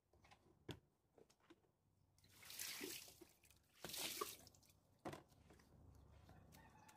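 Water poured from a plastic bucket splashing onto tiled steps in two gushes, one about two seconds in and another about four seconds in, with a few light knocks in between.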